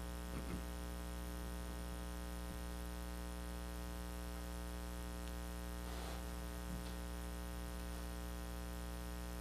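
Steady electrical mains hum with a ladder of even overtones, unchanging, from the microphone and sound-system chain.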